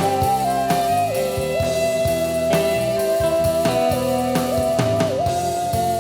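Music with a drum beat and a held lead melody line that steps back and forth between two notes.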